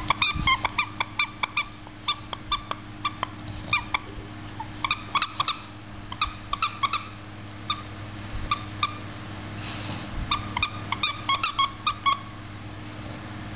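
Squeaker inside a plush dog toy squeaking over and over as an English bulldog bites down on it: short, high squeaks in quick runs of several, stopping about twelve seconds in.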